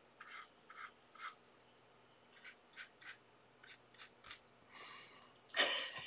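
Small paintbrush dabbing and stroking white paint onto textured paper: a string of short, faint scratchy strokes, about a dozen. A short breathy laugh comes near the end.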